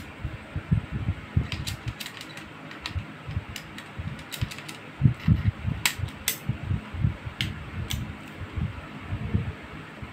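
Sharp metallic clicks from an ASG Dan Wesson 715 airsoft revolver being handled: cartridge shells going into its swung-out cylinder and the cylinder closing, about a dozen separate clicks, some in quick pairs. A low, uneven rumble runs under them.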